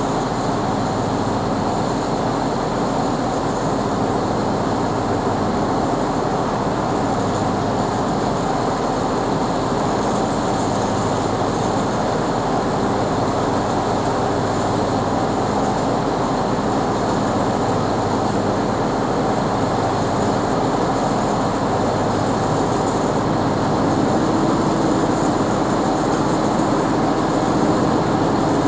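Heavy diesel truck engines running steadily. About 24 seconds in a higher steady note joins and the sound gets slightly louder.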